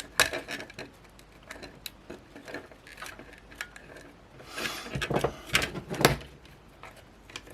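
Small plastic and electronic parts of a cheap camera being handled during a teardown: scattered clicks and light knocks, busiest about five to six seconds in.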